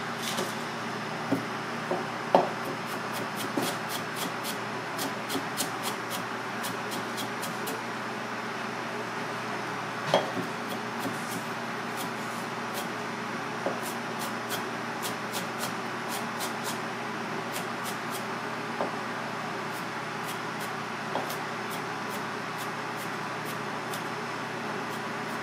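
Misono chef's knife chopping green onion on a plastic cutting board: runs of quick light taps, with a couple of louder knocks about two and ten seconds in, over a steady kitchen hum.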